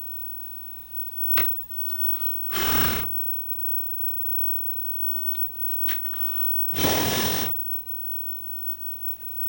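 Aerosol spray can of cleaner hissing in two short bursts, each about half a second long, as it is sprayed into a TV's UHF tuner; a sharp click and a fainter hiss come just before each burst.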